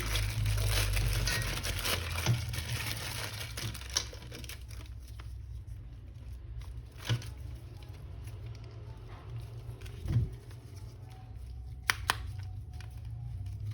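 Crinkling and rustling from hands handling something, denser for the first few seconds, then scattered light clicks and a few sharper knocks over a steady low hum.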